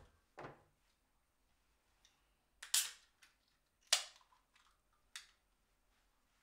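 Beer can's ring-pull being cracked open: two sharp cracks about three and four seconds in, the second trailing off in a short fizz, among lighter clicks and knocks.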